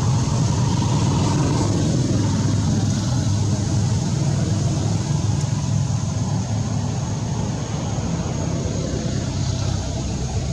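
Steady low rumbling background noise, with a faint, thin, high steady whine above it.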